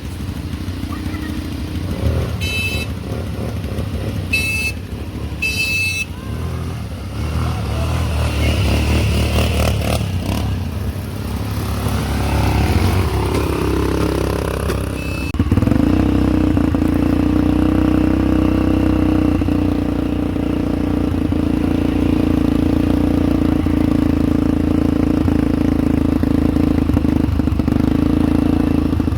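ATV engines running, with three short horn beeps in the first few seconds. About halfway through, the engine settles into a louder, steady drone.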